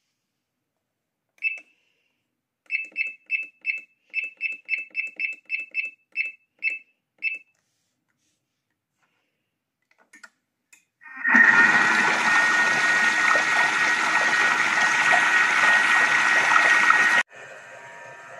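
Electronic appliance beeping: one beep, then about a dozen quick beeps in a row. After a pause, a loud machine noise with a steady whine starts abruptly, runs for about six seconds, and cuts off suddenly.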